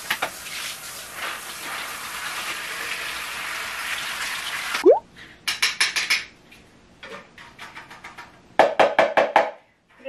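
Hand shower spraying water onto the tiled shower floor, cut off about five seconds in with a short rising squeak. A run of quick taps and rattles follows as water is shaken off the washed vacuum-cleaner parts, louder near the end.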